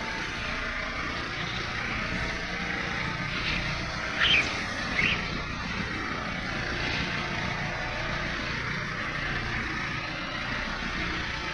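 An engine of site machinery running steadily through the concrete pour, with two short high chirps about four and five seconds in.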